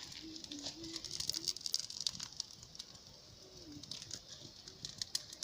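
Campfire crackling with scattered sharp pops. A dove coos a short run of low notes about a second in, and one falling coo comes later.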